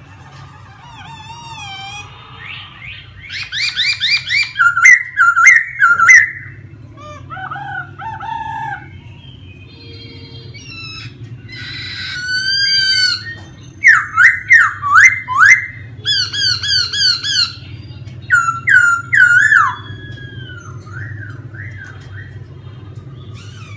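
Laughingthrush singing: loud whistled phrases of quick slurred notes and fast repeated trills, in two main bouts with quieter calls between, over a low steady hum.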